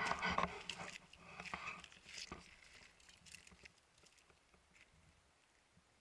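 Rustling and a quick string of clicks and scuffs, loudest in the first second, thinning to a few scattered ticks and then dying away about halfway through.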